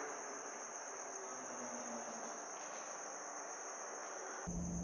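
Crickets chirring steadily at night, a continuous high-pitched trill. A low hum comes in near the end.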